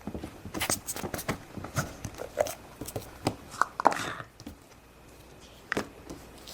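Handling sounds of plastic toy dough tools: a quick run of clicks and taps with a few brief squeaks as dough is pressed and cut with an empty Play-Doh can. The tapping thins out after about four and a half seconds, with one more tap near the end.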